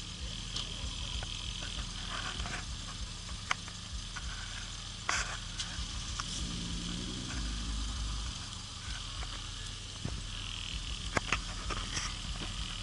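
Steady low engine hum under a light hiss, with scattered small clicks. The engine sound swells briefly about halfway through.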